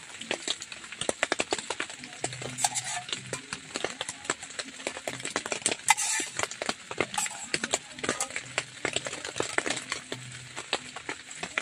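Spoon scraping and tapping inside a small metal camping pot as food is scooped out, a quick irregular run of clicks and scrapes with a longer scrape about halfway through.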